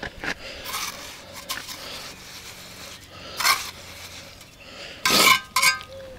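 Steel trowel scraping mortar onto hollow concrete blocks: a series of separate scrapes, with the loudest pair a little over five seconds in and a short metallic ring.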